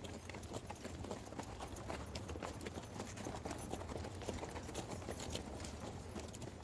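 Faint, irregular clip-clop of a ridden horse's hooves.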